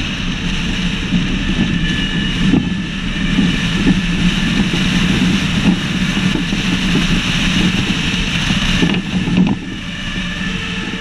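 Wind rushing over a roof-mounted action camera, mixed with the steady running noise of a fire engine's diesel engine and tyres at road speed. The level drops noticeably about nine and a half seconds in.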